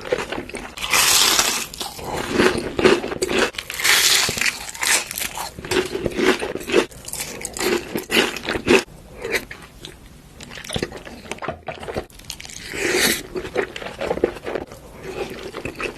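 Close-up crunching and chewing of food: irregular crunchy bites, with louder bursts about a second in, around four seconds in and near the end, and a quieter stretch past the middle.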